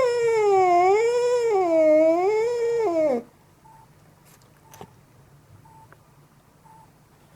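Angry domestic cat yowling: one long drawn-out call that wavers up and down in pitch and drops away about three seconds in. Then only a few faint clicks.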